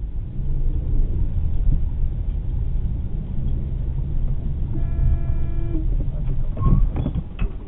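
Low rumble of a car driving, heard from inside the cabin, with a car horn sounding once for about a second about five seconds in. A few sharp knocks follow shortly after.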